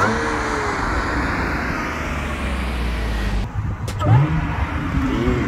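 Audi B8 S4's 3.0-litre supercharged V6 driving along a highway with engine and tyre noise, then revving up in short rising pulls about four and five seconds in.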